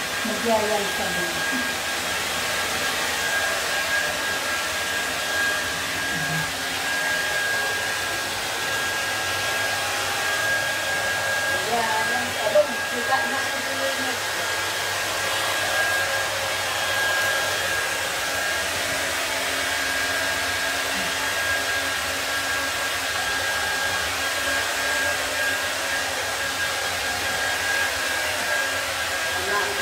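Handheld hair dryer running steadily, blowing warm air over a wet cat's fur: a continuous rush of air with a steady high whine. A brief sharper sound cuts in around twelve seconds in.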